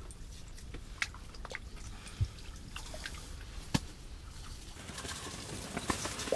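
Scattered soft clicks and knocks of a fishing rod and reel being handled while a whitefish is brought up through the ice hole, with a single low thump about two seconds in. Near the end, water splashes as the fish is lifted out of the hole.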